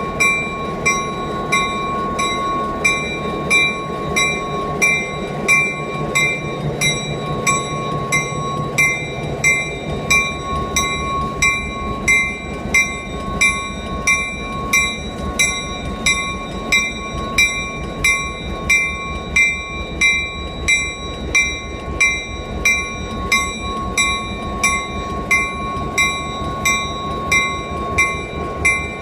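A locomotive bell ringing steadily, about three strokes every two seconds, over the low rumble of an EMD SD9 diesel locomotive's engine as it moves.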